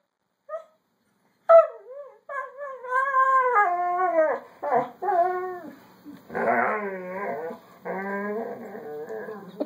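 Dog whining and howling: a short yip about half a second in, then from about a second and a half on a string of long, drawn-out howling whines that slide up and down in pitch.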